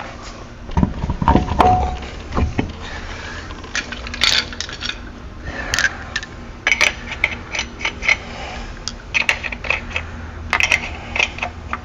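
Metal tools and parts clinking and clattering as they are handled, with a few dull thumps in the first couple of seconds followed by many short, irregular clinks.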